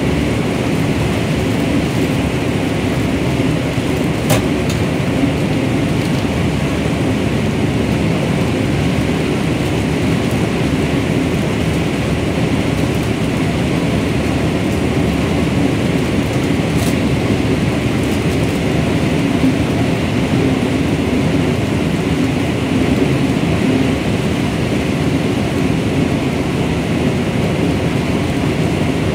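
Corn harvester running steadily as its header cuts and draws in standing dry corn stalks: a loud, continuous machine noise. There is a short click about four seconds in.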